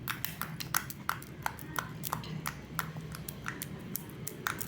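Quick, sharp clicks and small pops at an irregular pace, about four a second, over a faint low hum.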